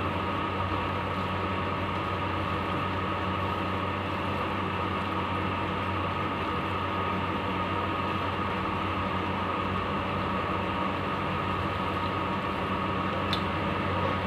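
Steady motor hum with several fixed tones, and a faint click near the end.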